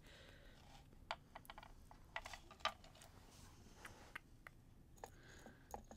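Faint, irregular small clicks of glass beads and metal findings being handled and picked out of a ceramic dish. The clicks are bunched in the first half and come again, more sparsely, near the end.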